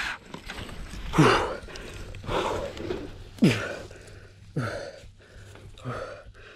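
A man groaning and gasping for breath after crashing his mountain bike: about five drawn-out moans roughly a second apart, each falling in pitch.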